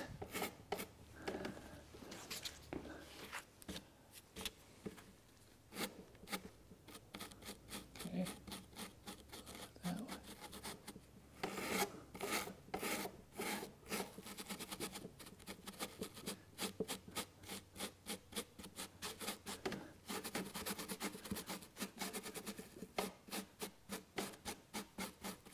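Faint scratching of a stiff hand brush scrubbing a small piece of wet, degreaser-soaked car carpet, in runs of short back-and-forth strokes, several a second, with brief pauses, working at a hard, glue-like stain.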